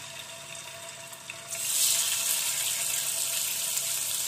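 Marinated chicken pieces sizzling as they fry in hot mustard oil in a kadhai. The sizzle jumps louder about a second and a half in as another piece goes into the oil.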